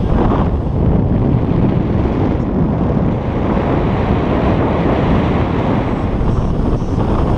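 Steady wind noise buffeting the camera microphone from the airflow of a paraglider in flight.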